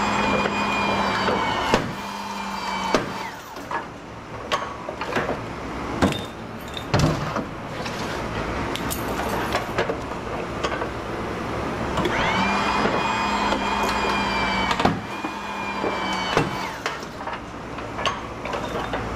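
A power tool whining up to speed and running for about three seconds, twice, about twelve seconds apart, with a steady hum under the whine. Between the runs come many sharp knocks, the loudest just under two seconds in.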